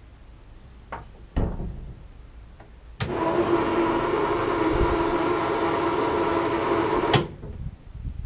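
Switch clicks, then an electric fuel pump switched on runs with a steady whine for about four seconds and cuts off abruptly with a click.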